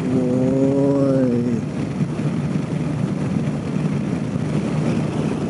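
Yamaha MT-10 SP's crossplane inline-four engine running at cruising speed, heard from the rider's seat with wind and road noise. A steady pitched tone holds for about the first second and a half, then fades.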